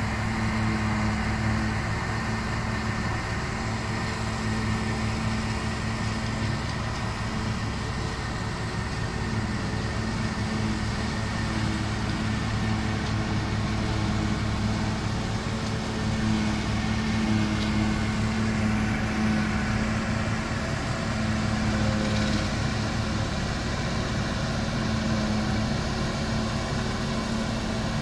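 UES K-G-6 self-propelled forage harvester and MTZ 1221 tractor working together, the harvester's engine and chopper running steadily while it picks up and chops grass for haylage and blows it into the towed trailer. A continuous heavy drone with a steady low hum, swelling and easing slightly.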